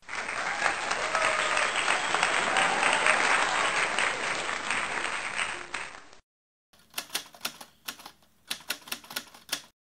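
Applause, a dense clapping that cuts off abruptly about six seconds in, then after a short gap a quick, irregular run of typewriter key clacks: sound effects over an end card.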